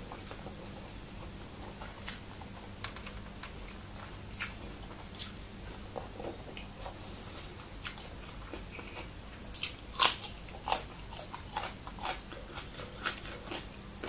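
A person chewing and biting crunchy raw vegetables close to the microphone: scattered small crunches at first, then louder, sharper bites from about two-thirds of the way through.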